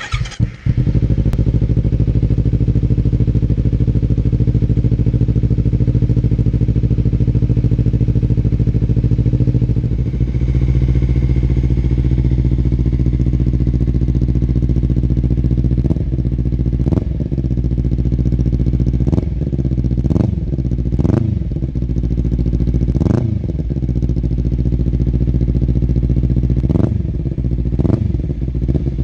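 Kawasaki Ninja 300's parallel-twin engine running through a Stealth Performance aftermarket exhaust, idling steadily for the first half. From about halfway it is revved in about eight short blips, each rising quickly and dropping back to idle.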